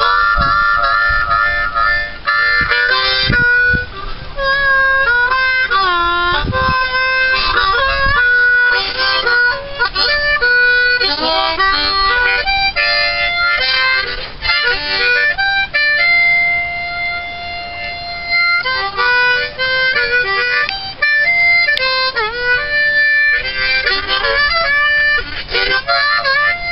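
Harmonica played by hand in short runs of chords and single notes, with one long held note about two-thirds of the way through.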